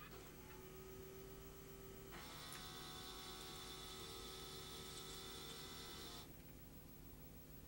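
Panasonic NV-HS1000 VCR deck motor whirring faintly: a low steady tone, then about two seconds in a higher whine that runs for about four seconds and cuts off suddenly. The repairer takes it for the loading motor spinning freely because its motor coupling has split, a very common fault on these decks.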